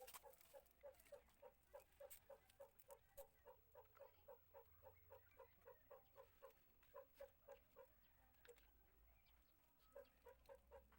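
Faint, rapid run of short pitched calls from a bird, about four a second, pausing near the end before a few more.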